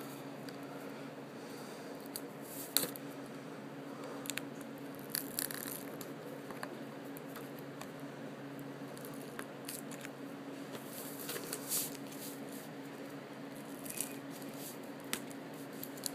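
Hands picking at the plastic shrink-wrap on a DVD case: scattered sharp clicks, taps and short crinkles over a steady low electrical hum. The loudest click comes about three seconds in.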